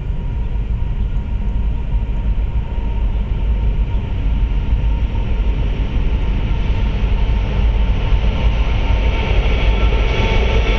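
Approaching Norfolk Southern freight train's diesel locomotives: a steady low rumble that grows louder, with wheel and rail noise rising over it near the end.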